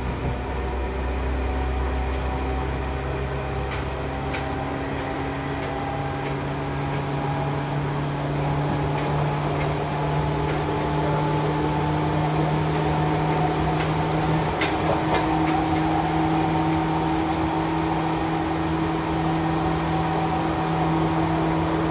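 Running sound of a resistance-controlled Seibu 101 series electric train heard from inside the motor car: traction motor and gear whine in several steady tones that rise slowly in pitch as the train picks up speed, over rolling noise, with a couple of sharp clicks.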